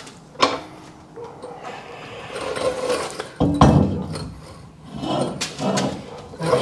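Floor jack carrying a Ford 9-inch rear axle being pushed across a concrete floor: rolling, scraping and clanking of metal, with a couple of sharp knocks early on and a louder rattling stretch from about halfway.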